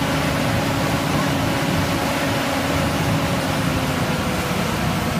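Pierce Impel fire engine running its pump hard to feed a deck gun. A steady engine and pump drone blends with the rush of the water stream, and a low hum drops out about four seconds in.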